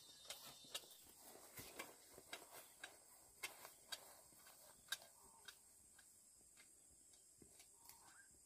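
Faint, irregular sharp clicks and taps, about one or two a second, thinning out after about five seconds, over a steady faint high hiss.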